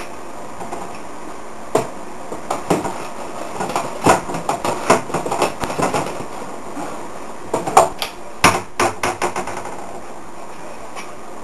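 Kitchenware being handled: scattered knocks and clinks in clusters, about two seconds in, from about four to six seconds, and again around eight seconds, over a steady background hiss.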